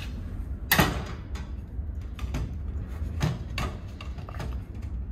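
Knocks and clatters of a carburetor and its parts being set into a lidded plastic bucket of parts cleaner, the loudest about three-quarters of a second in, then several lighter knocks. A low steady hum runs underneath.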